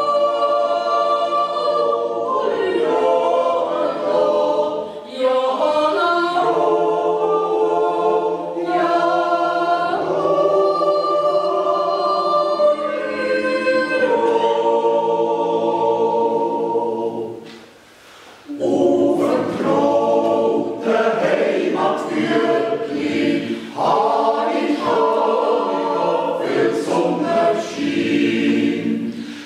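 Swiss yodel choir of men's and women's voices singing a cappella in sustained close-harmony chords. The singing breaks off for about a second past the middle, then resumes.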